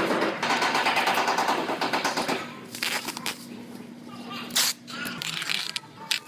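Masking tape being peeled off a car body panel, a loud rapid crackle for about two and a half seconds, then quieter crinkling of plastic masking sheet as it is pulled away.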